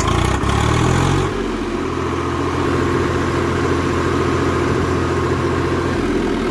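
Swaraj 735 FE tractor's three-cylinder diesel engine revving up over the first second, then running steadily as the cage-wheeled tractor pulls through wet paddy mud.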